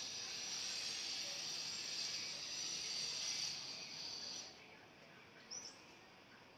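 Dense, steady high-pitched animal chorus that stops abruptly about four and a half seconds in, followed by a single short chirp about a second later.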